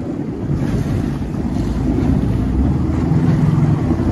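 Jet ski running at speed over choppy sea: a low steady engine hum under heavy wind noise on the microphone and rushing water.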